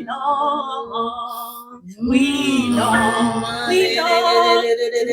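A voice singing a slow worship refrain in long held notes with vibrato over a sustained backing chord.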